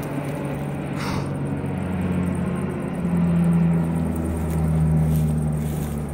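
Propeller engine of a single-engine firefighting plane droning low overhead, its pitch shifting slightly as it passes and growing louder in the second half.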